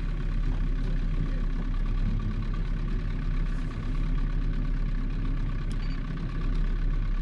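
Fishing boat's outboard motor running steadily at slow trolling speed, a low even hum.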